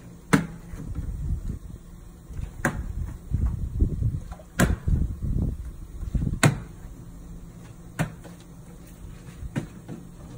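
Plastic bottle being flipped repeatedly and landing on concrete stepping stones: six sharp knocks, spaced about one and a half to two seconds apart. The loudest come near the start and about two-thirds through, with a low rumbling noise between them.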